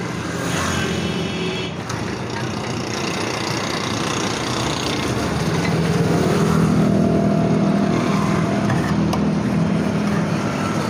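Road traffic: a motor vehicle engine running over a steady street hum, getting louder from about halfway through.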